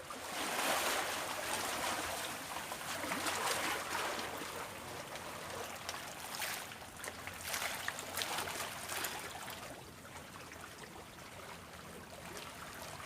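Water sloshing and splashing along the bank, in swells that rise and fall every few seconds.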